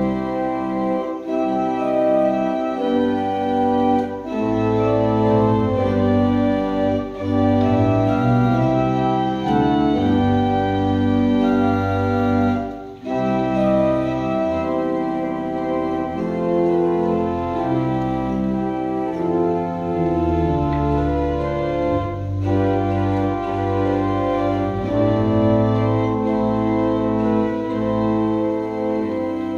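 Organ played on manuals and pedals: a slow hymn in sustained full chords over a pedal bass line, with a brief breath between phrases about halfway through.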